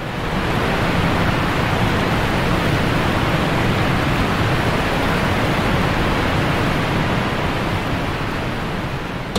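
A steady, even rushing noise with no rhythm or swells, fading up at the start and easing slightly near the end.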